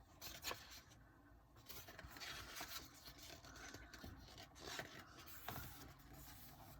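Faint rustling and scraping of paper as the pages of an album photo book are handled and turned, with a few soft clicks.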